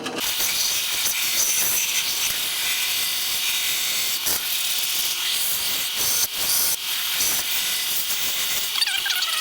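Belt sander running with a wooden spatula blank pressed against the belt, a steady gritty sanding noise that varies a little as the wood is worked.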